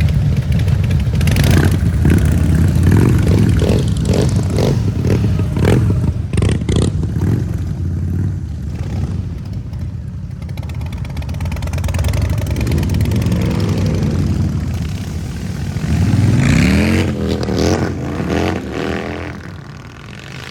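Harley-Davidson V-twin motorcycle exhaust rumbling with throttle blips. The revs rise about two-thirds of the way through and again near the end, then the sound dies away.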